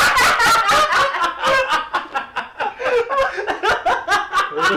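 A man and a woman laughing loudly together, in quick repeated peals.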